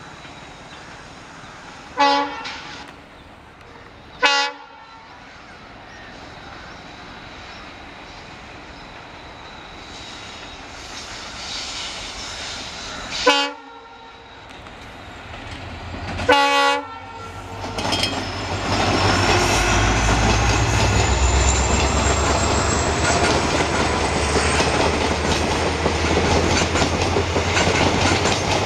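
WDP4 diesel-electric locomotive, with its EMD 16-cylinder 710 two-stroke engine, sounding its horn in four short blasts as it approaches. It then passes close with a loud low engine rumble and a thin high whine rising slowly in pitch, and its coaches roll past with wheel clatter.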